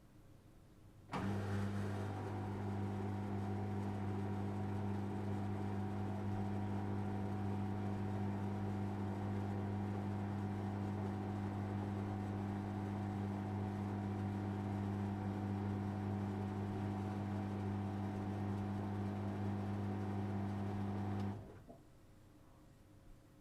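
Electric kitchen appliance running with a steady, deep mains-frequency hum, switching on abruptly about a second in and cutting off about twenty seconds later.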